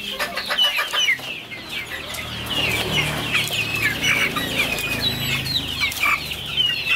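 A coop of young KUB chickens, two to three months old, clucking and peeping together: many short high calls, most falling in pitch, overlapping one another.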